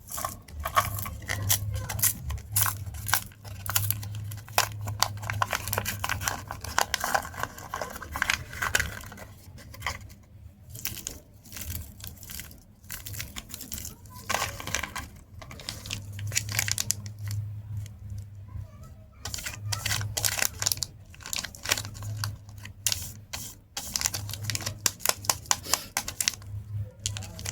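Chocolate bar wrappers crinkling and tearing as they are opened, in dense irregular crackles with a few short pauses, over a low hum in stretches.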